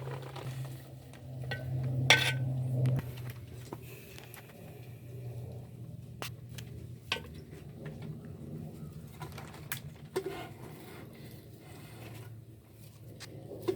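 Scattered knocks and clinks of cooking utensils against a pot, over a low steady hum that is louder in the first few seconds.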